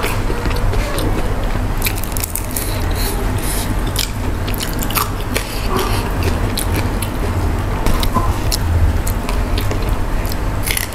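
Close-miked chewing of crisp fried tilapia (ikan mujair), with many small, sharp crunches and crackles as the fried fish is bitten and eaten.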